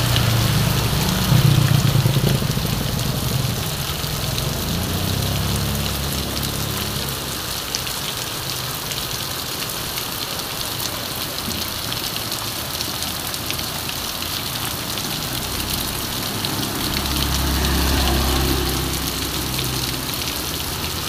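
Heavy rain pouring steadily onto a paved street. Motorbike engines pass near the start and again near the end.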